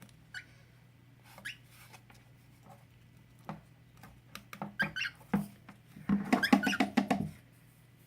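Cockatiels in a shoe cubby giving short chirps, with scattered clicks of beaks working on shoes. About six seconds in comes a loud, rapid rattling sound that lasts about a second, the loudest thing here.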